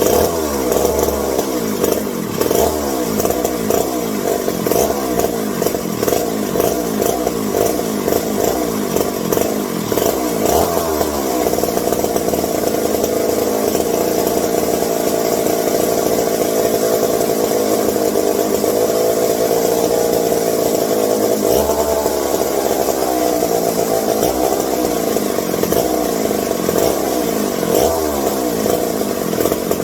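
Vintage McCulloch 740 two-stroke chainsaw engine running, its speed rising and falling unevenly, then holding steadier for about ten seconds in the middle before varying again.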